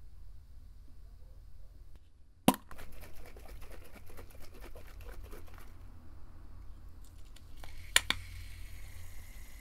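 Light clicks and crackling of containers being handled on a table, then a sharp click near the end as an aerosol can of Schick shaving foam is pressed and starts a steady hiss of spraying foam.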